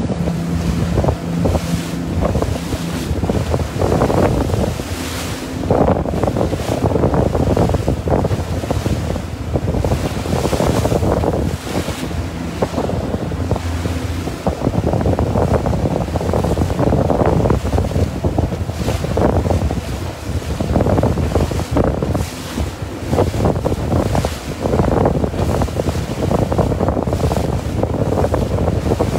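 Wind buffeting the microphone and water rushing and splashing past a small motorboat running at speed, with the steady drone of its outboard motor underneath. The noise swells and falls in gusts.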